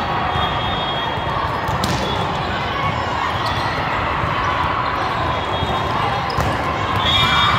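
Indoor volleyball in a large echoing hall: a few sharp smacks of the ball being served and hit, over a steady din of voices and play from neighbouring courts, with short high squeaks or whistles, the loudest near the end.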